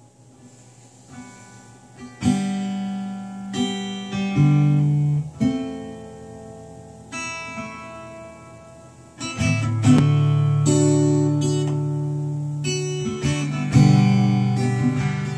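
Acoustic guitar playing a slow instrumental blues intro: soft picked notes at first, then, from about two seconds in, ringing chords struck and left to fade, one after another.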